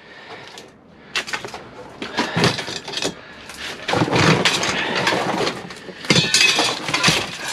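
Loose scrap metal clattering and clanking as pieces are handled and dropped, in several separate bursts of rattling impacts.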